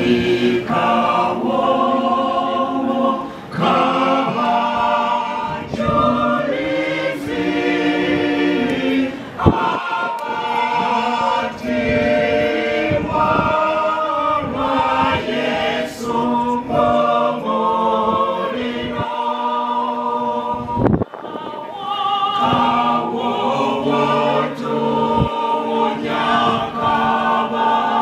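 Women's choir singing in harmony, holding sustained notes, with short breaks between phrases a few times.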